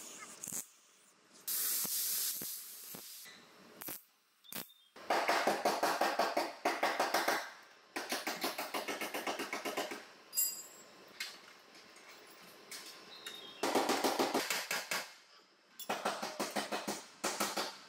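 Handheld pneumatic tool chattering against the car's sheet-steel body in rapid bursts of a second or two, four times, cutting out collision-damaged metal.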